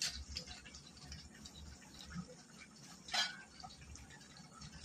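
Faint bubbling and stirring of a watery vegetable curry simmering in an aluminium kadai, with small liquid ticks and one brief louder clink or splash about three seconds in.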